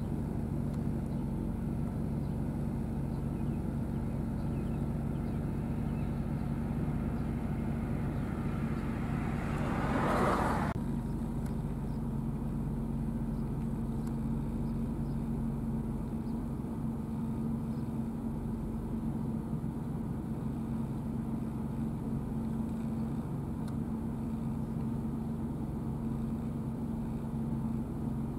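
Case IH STX 375's six-cylinder diesel working steadily under load, pulling a disc through field stubble: a constant low engine drone. About ten seconds in, a brief rush of noise swells up and cuts off sharply.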